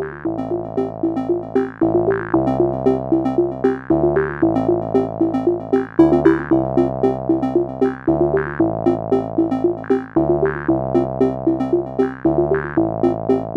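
Electronic background music: a synthesizer plays a quick repeating figure over bass notes that change about every two seconds.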